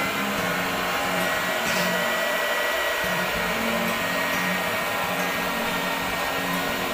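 Electric straight-knife cloth cutting machine running as it cuts through a stack of fabric: a steady motor hum and hiss with a thin high whine.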